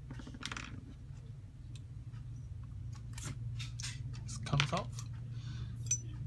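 Small metal parts clicking and scraping as the screws and bolt stopper are worked off an airsoft gun's bolt, over a steady low hum.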